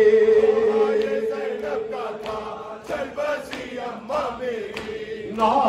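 Unaccompanied Urdu noha: a man's voice holds a long chanted note at the end of a line and lets it fade, while other male voices chant along. Through it come rhythmic open-handed chest strikes of matam, about two a second.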